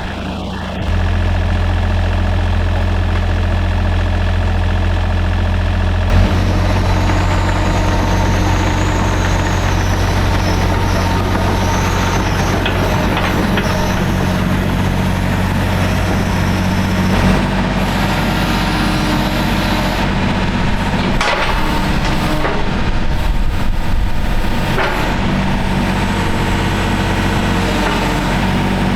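John Deere 35D mini excavator's diesel engine running steadily. About six seconds in it grows louder and busier as the machine works.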